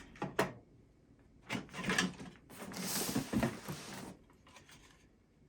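Handling noise from Pyrotronics EH24S horn strobes being picked up and turned over: a few clicks and knocks in the first two seconds, then a rustling scrape lasting about a second and a half.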